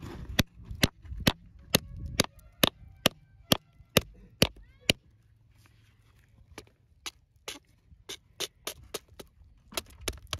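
Hammer striking a steel chisel driven into a quartz crystal pocket in rock, chiseling to work crystal points loose. The blows come about two a second, several with a metallic ring. After a short pause past the middle, lighter and quicker taps follow.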